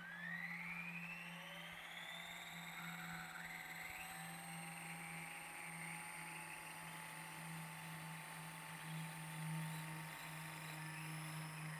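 Electric motor and rotor of an Ikarus ECO 7 radio-controlled helicopter spooling up on the ground: a whine that rises in pitch over the first few seconds, then runs steady, with a low hum underneath.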